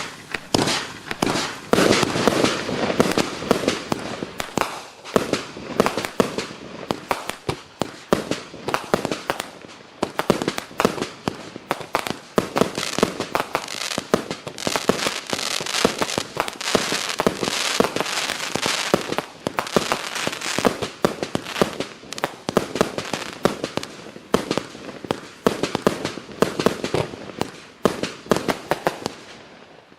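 A 98-shot, 0.9-inch-calibre firework cake firing, a continuous stream of shots and bursts in quick succession with crackling.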